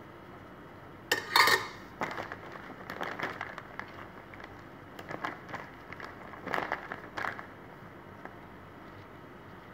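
A metal spoon scraping and clinking against a glass baking dish as thick white sauce is spread over pasta: a sharp scrape about a second in, then scattered shorter scrapes and taps that stop about seven seconds in.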